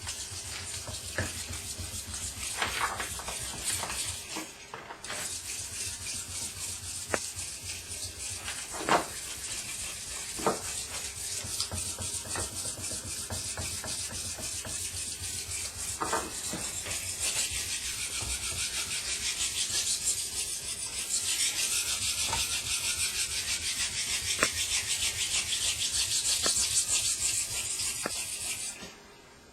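Steel knife blade being ground by hand on a wet 1000-grit Japanese water stone: fast back-and-forth strokes make a continuous gritty scraping, grinding out chips to set a new primary edge. The grinding pauses briefly about four seconds in and stops just before the end.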